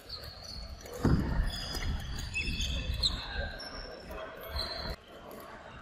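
Badminton doubles play on a wooden court: a sharp hit about a second in, then players' footsteps thudding on the floor and short high squeaks of court shoes.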